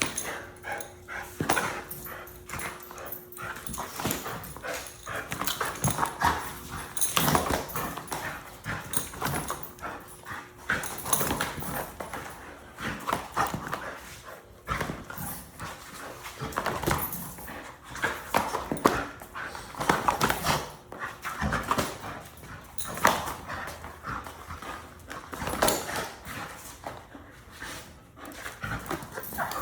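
An American bully dog making short, irregular sounds in quick succession throughout.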